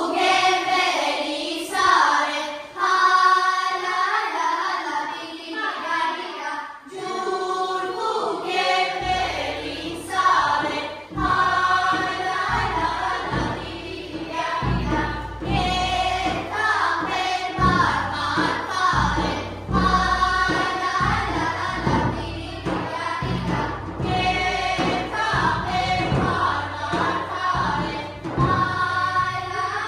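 A group of voices, adults and children, singing an Armenian folk song together for a circle dance. About nine seconds in, steady low thumps join under the singing and keep the beat.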